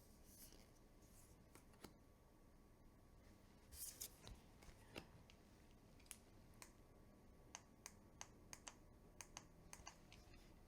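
Faint handling of tarot cards being flipped through: soft swishes of card stock and light, sharp clicks as cards are moved and set down, the clicks coming more often in the second half.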